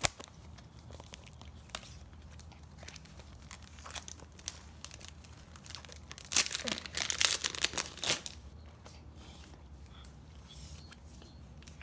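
Foil trading-card pack wrapper crinkling and tearing, loudest in a burst of about two seconds midway, with light clicks and rustles of cards being handled before and after.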